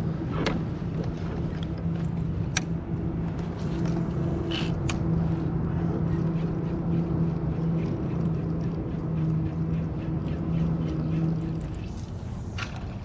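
A motor's steady low hum that stops about a second before the end, with a few sharp clicks and ticks over it.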